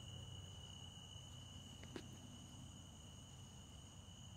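Faint, steady chorus of night insects trilling, with one short click about two seconds in.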